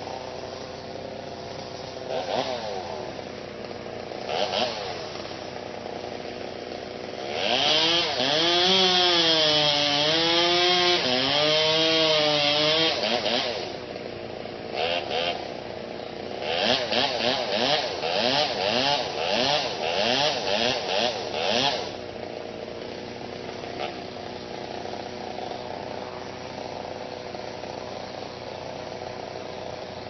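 Chainsaw idling, blipped twice, then held at full throttle for about five seconds, its pitch sagging and recovering as it cuts wood. Later it is revved in quick bursts about twice a second for several seconds, then drops back to idle.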